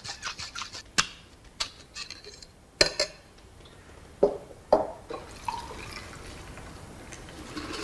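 Sharp metallic clicks and clinks from a steel cocktail shaker being handled, including two short ringing clinks a little after the middle. Then a cocktail pours from the shaker over ice into a glass tumbler, a low steady splashing.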